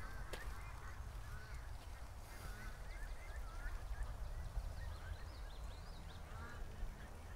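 Domestic geese and ducks calling, scattered short honks and quacks, over a low steady rumble.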